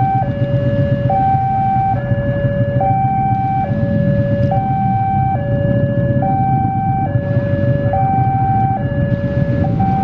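Railway level-crossing warning siren sounding an electronic two-tone hi-lo alarm, a higher and a lower tone alternating, each held just under a second. A steady low rumble of the approaching diesel train runs underneath.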